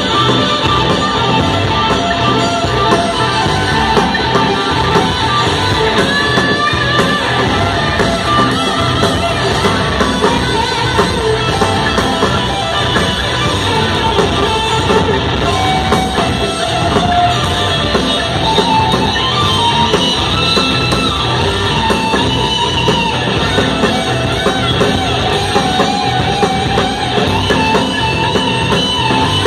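Live rock band playing through a PA: electric guitars over a drum kit, heard from within the audience.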